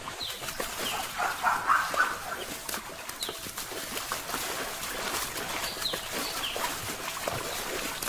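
Short, high, falling chirping animal calls at scattered intervals over steady outdoor background noise.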